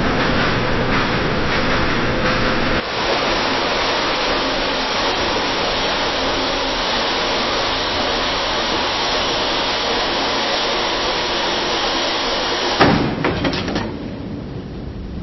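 Ironworks factory ambience: a steady din of machinery with clanks of metal, changing to a smoother, steadier noise about three seconds in. Near the end a loud metal bang and a short clatter stand out, then the din drops lower.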